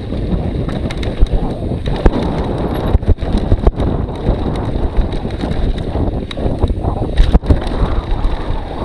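Wind buffeting the microphone of a camera carried on a fast downhill ride, a heavy rumbling rush. Sharp knocks and rattles come through it, the strongest about two seconds in and again just after seven seconds.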